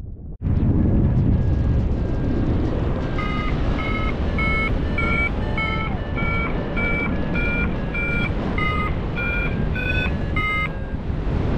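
Paragliding variometer beeping about twice a second, its pitch wandering up and down, the tone a vario gives while the glider is climbing in lift. It starts about three seconds in and stops near the end, over steady wind rushing on the microphone.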